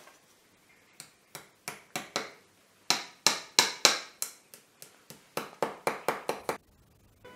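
Shoemaker's hammer beating a piece of sole leather held on the lap: sharp knocks, a few spaced ones at first, then two quick runs of about three to five strikes a second, stopping shortly before the end.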